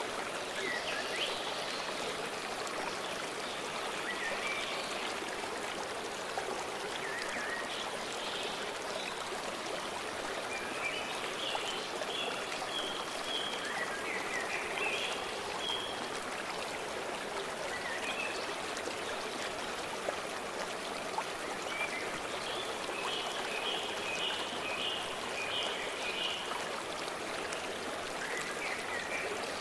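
Steady rush of a flowing stream, with songbirds singing short chirping phrases over it now and then, including a quick run of repeated notes a little past the middle.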